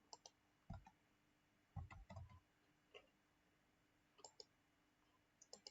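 Faint, scattered clicks of a computer mouse, about a dozen over the few seconds, some in quick pairs, against near silence.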